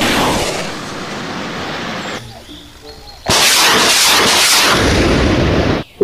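Rocket launches from a vehicle-mounted military launcher: a loud rushing blast that fades over the first two seconds. About three seconds in, a second launch roars until it cuts off abruptly just before the end.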